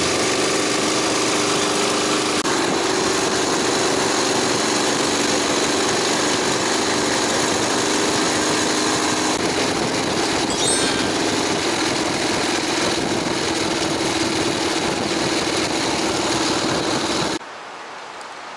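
Harley-Davidson Sportster's V-twin engine running steadily at cruising speed, under heavy wind rush on the microphone. Near the end it cuts to a much quieter steady outdoor hiss.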